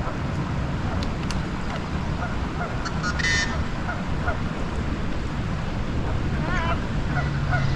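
Waterfowl calling over a steady outdoor hiss: a short call about three seconds in and a wavering call near the end, with a few faint chirps between.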